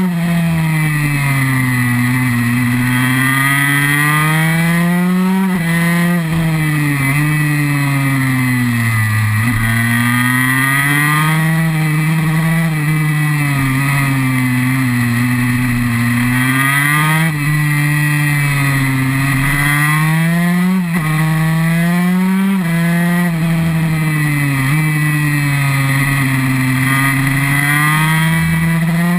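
KTM SX 144's single-cylinder two-stroke engine heard from onboard, its revs rising and falling over and over as the bike is ridden hard around a track, with a few abrupt steps in pitch.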